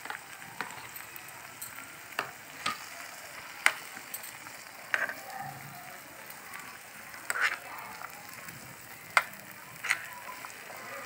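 Spatula stirring vegetables frying in tomato masala in a nonstick pan: short sharp scrapes and taps against the pan at irregular intervals of about a second, over a faint steady sizzle.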